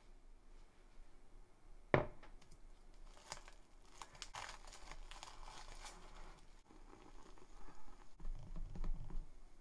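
A sharp knock about two seconds in, then plastic cling film crinkling as it is peeled off a glass bowl of melted marshmallows. Near the end, a whisk stirring the sticky melted marshmallow in the bowl.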